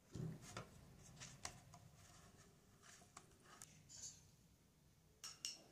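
Faint scraping of a small metal knife spreading cheese spread over a chapati on a plate, with a few light ticks and two sharper clicks near the end.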